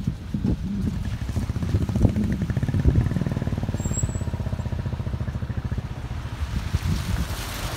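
Motorcycle engine running with a rapid, even thumping pulse, close by on a rough road. A rushing noise rises near the end.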